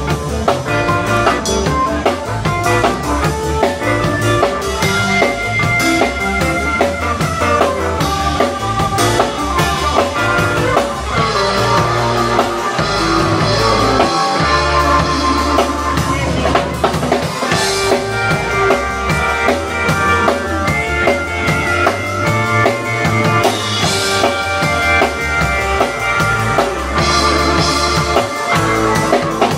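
Live band playing an instrumental rock passage: electric guitar, bass guitar and a drum kit with a steady beat.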